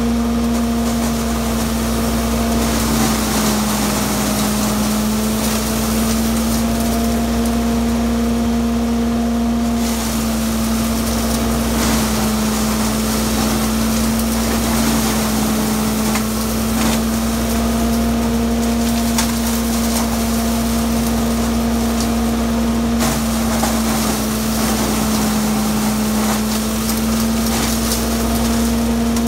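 Harper Goosen CS-5400 chipper shredder driven off a John Deere 850 tractor's PTO, running with a steady hum that sags in pitch for a few seconds at a time as branches are fed in and chipped under load. Sharp cracks and snaps of the wood being shredded come through over it.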